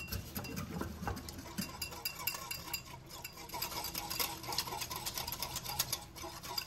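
Stainless steel wire whisk beating a thin flour-and-water slurry in a ceramic bowl: rapid, continuous clicking and scraping of the wires against the bowl.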